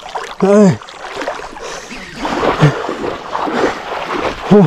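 Water splashing as a large snakehead thrashes on the line in shallow water, with noisier splashing in the second half. A man gives three short, strained shouts while fighting it, the first and last loud.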